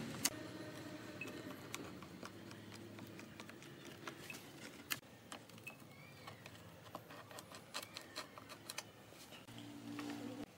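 Faint, scattered clicks and taps at uneven intervals from a hot glue gun being handled and triggered along the rim of a wooden frame, over a faint low hum.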